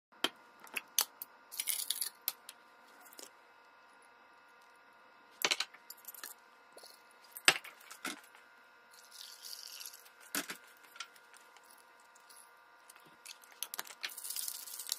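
Scattered clicks and knocks as glassware and a stainless steel cocktail shaker are handled and set down on a granite countertop; the loudest knock comes about halfway through. A faint steady hum lies underneath.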